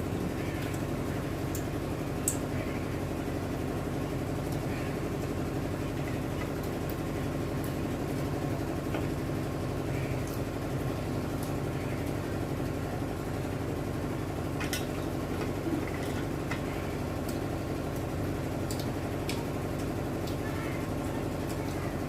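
A steady mechanical hum, with scattered faint clicks and smacks of people eating rice and fish by hand from plates.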